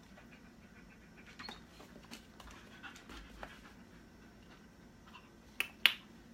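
A dog taking treats from a hand through an open collar, with small mouth clicks and snaps and some panting. Two loud sharp clicks follow each other closely near the end.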